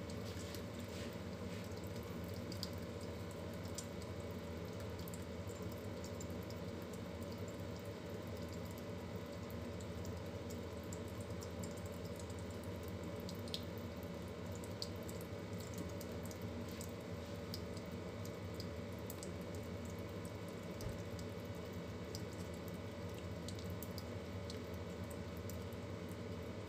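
Kitchen tap running a thin, steady stream of water into a stainless steel sink, with faint scattered drips and splashes.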